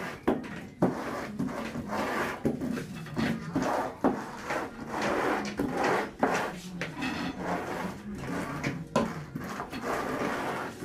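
Floor squeegee worked back and forth through a wet epoxy top coat over a vinyl-flake floor, rubbing and scraping in quick repeated strokes, about two a second.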